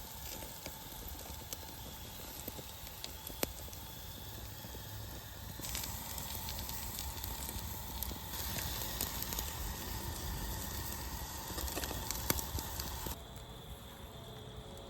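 Frankfurters sizzling as they cook, with a few faint pops.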